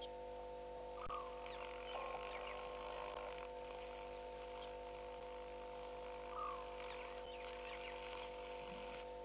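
Night ambience at a waterhole over a steady hum of several fixed tones, with a faint haze of tiny high clicks. Two short calls from a small animal stand out, about a second in and again at about six and a half seconds.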